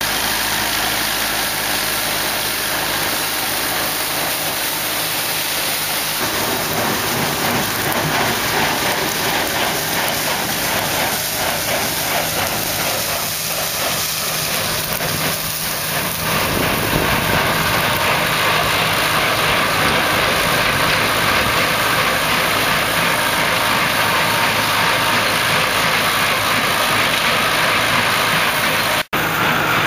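Tractor engine running steadily while pulling a Cicoria Special Cut square baler, which picks up, cuts and bales wheat straw. The baler's machinery noise is mixed in with the engine.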